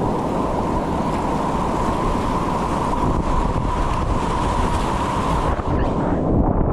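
Whitewater rapids rushing around a kayak, a steady loud rush of water. Near the end the higher hiss drops away and the sound turns muffled.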